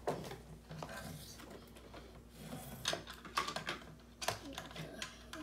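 Hard plastic toy robot parts clicking and clattering as they are handled and fitted together, in irregular taps and knocks, the loudest about four seconds in.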